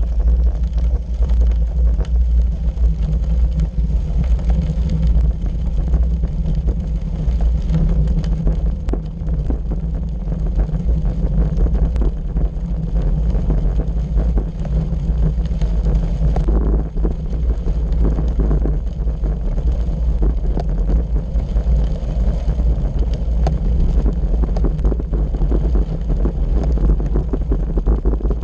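Bicycle tyres rolling over a gravel road, a steady low rumble with many small ticks of loose stones, mixed with wind buffeting a bike-mounted camera microphone.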